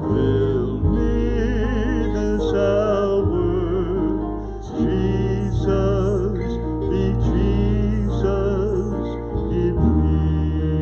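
Worship song: a singer's held notes with vibrato over keyboard accompaniment and a steady bass.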